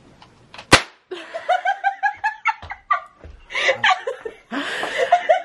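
A handheld confetti cannon goes off with a single sharp pop under a second in, followed by laughter.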